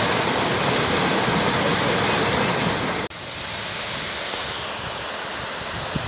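Mountain stream rushing and splashing over rock cascades, a steady loud rush of white water. About three seconds in it cuts abruptly to a quieter, more distant rush.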